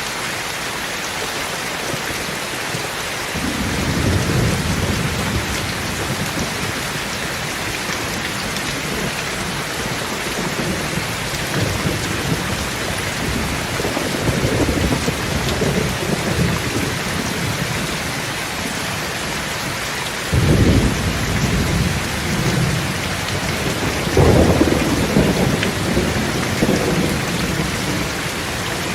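Steady heavy rain falling, with rolls of low thunder swelling up several times. The sharpest roll breaks in suddenly about twenty seconds in, and the loudest comes soon after.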